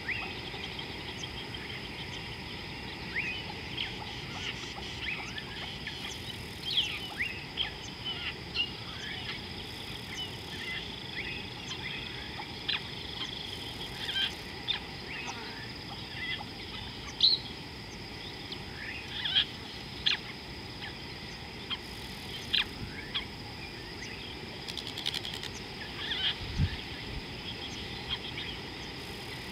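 Wild birds giving many short chirps and calls, scattered through the whole stretch, over a steady high insect drone. A brief low sound comes near the end.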